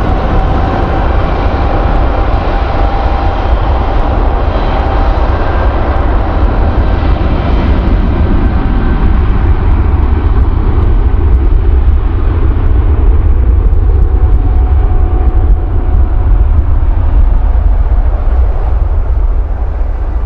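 Jet airliner engines running at high power close by: a deep rumble under a whine that rises in pitch at the start, then holds steady, with the sound growing duller toward the end.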